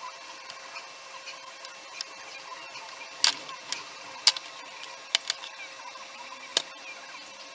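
A few sharp clicks and knocks, as of tools and hard parts being handled during repair work, spaced irregularly over the second half, over a faint steady hum.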